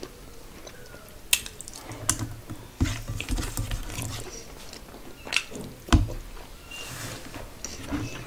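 Close-miked eating by hand: chewing with wet mouth sounds, and fingers mixing rice and curry on a steel plate. A few sharp clicks and smacks stand out.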